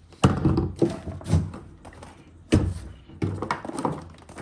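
A series of about five hollow plastic knocks and clunks as a fish finder is unclipped and lifted off its mount on a plastic kayak.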